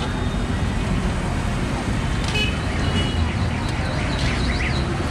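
Steady noise of a busy road with passing traffic. Near the end, a high warbling chirp starts repeating several times a second, like a car alarm.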